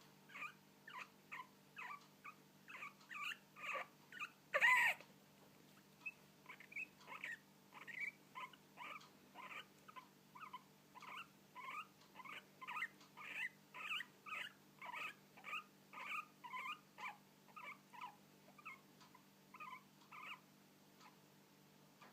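Guinea pig hiccuping: short, high squeaky hics repeating about twice a second, with one louder, longer squeak about five seconds in. The hics stop near the end.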